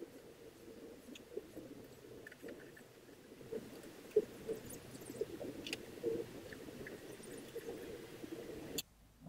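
Faint, irregular small metal ticks and scrapes of a hex key turning a 1/4-20 button-head bolt into an aluminium corner gusset on a T-slot aluminium extrusion. The sound cuts off abruptly near the end.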